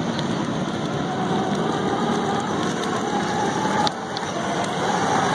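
Children's battery-powered ride-on toy car driving along, with the steady rolling noise of its plastic wheels and motor.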